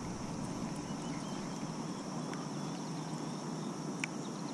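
Quiet lakeside ambience with a steady high hiss and a few faint chirps about a second in, plus two soft clicks, the sharper one about four seconds in, from a small Shimano 500-series ultralight spinning reel being worked during a cast.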